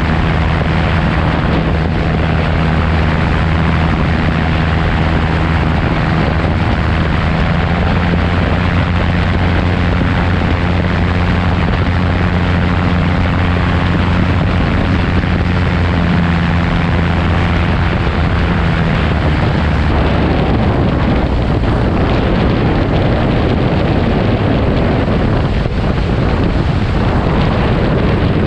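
AutoGyro Cavalon gyroplane in flight: its Rotax 915 iS turbocharged four-cylinder engine and pusher propeller running at a steady note under heavy wind rush on the outside microphone. About twenty seconds in the engine tone drops away, leaving mostly wind noise, as power comes back on the landing approach.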